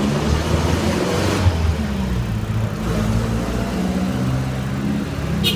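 A motor vehicle engine running close by, its pitch shifting up and down as it revs and eases off. There is a short burst of rapid metallic ticking right at the end.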